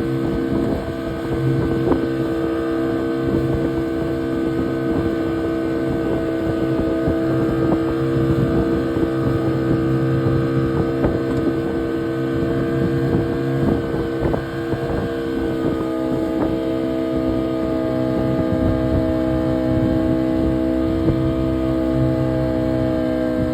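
Boat engine running at a steady drone, with rushing wind and water noise over it. The engine note shifts slightly in pitch about two-thirds of the way through.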